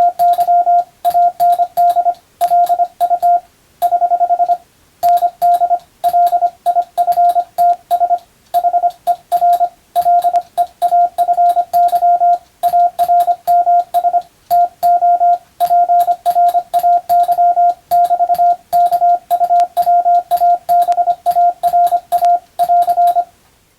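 Morse code (CW) sent as a single steady tone of about 700 Hz, keyed on and off in short dots and longer dashes with brief gaps between characters, a faint click at each keying. It stops shortly before the end.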